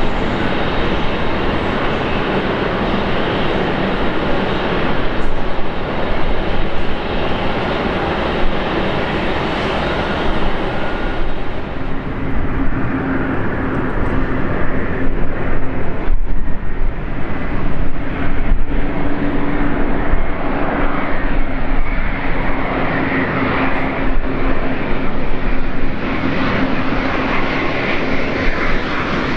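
Jet airliner's engines on approach to land, a continuous rushing noise that swells louder through the middle, with a steady hum coming in about halfway through.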